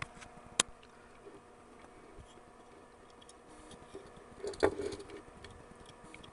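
Handling noises at a workbench: a single sharp click about half a second in, then a brief cluster of knocks and rattles a little past the middle, the loudest part. A faint steady hum runs underneath.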